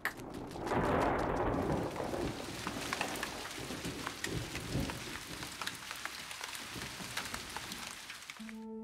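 Heavy rain pouring in a thunderstorm, with a rumble of thunder swelling about a second in and fading, then a steady hiss of rain with many drops pattering.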